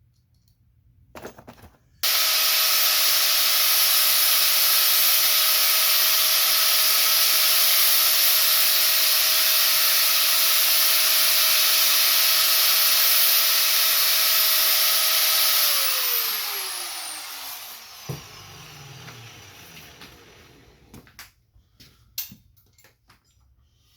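Electric power tool, such as a grinder, switched on about two seconds in and running at a steady speed with a steady whine and a strong hiss. Near the end it is switched off and spins down, its whine falling in pitch over a couple of seconds, followed by a few light clicks.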